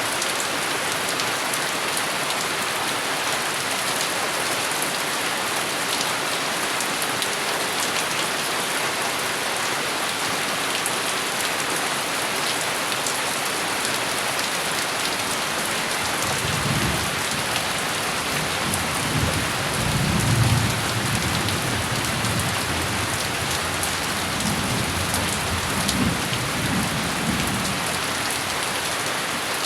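Steady heavy rain falling on a surface, with rolling thunder rumbling in the second half, loudest about two-thirds of the way in.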